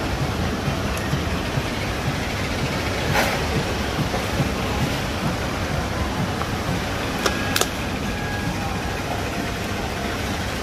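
Steady rushing background noise, with a sharp click about three seconds in and two more close together about seven and a half seconds in.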